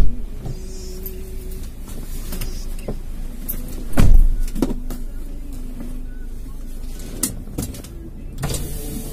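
Car engine idling, heard from inside the stopped car's cabin, with scattered clicks and a loud thump about four seconds in.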